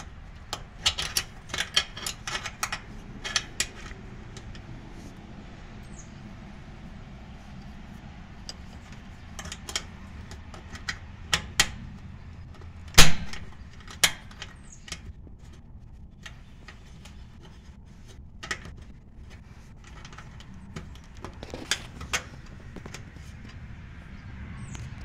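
Small metal clicks and clinks of a cord strain-relief clamp and the range's sheet-metal bracket being handled while the power cord is fitted. There is a quick run of clicks in the first few seconds, then scattered clicks with one loud knock about halfway.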